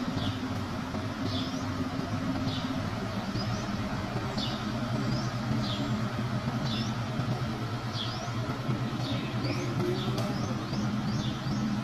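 A diesel engine idling steadily, with a bird chirping over it in short, falling high notes about once a second.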